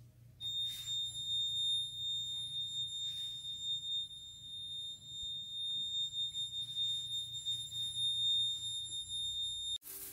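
A steady, high-pitched electronic tone, like a buzzer or alarm, held unbroken for about nine seconds and cutting off abruptly near the end.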